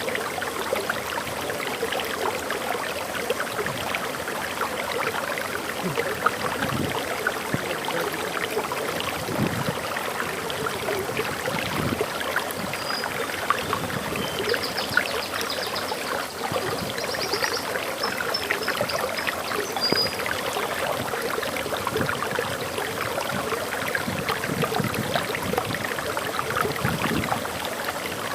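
Waterfall flowing steadily, a continuous splashing rush of water. A few faint high bird chirps come through in the middle.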